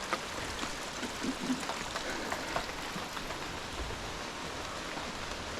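Steady rain falling through rainforest foliage, an even hiss with scattered single drops ticking nearby.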